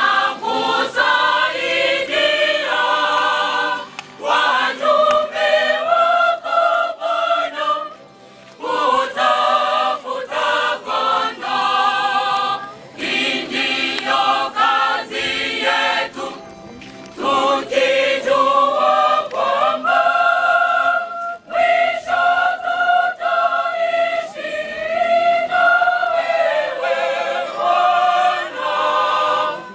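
A choir singing together, phrase after phrase, with brief breaks between phrases.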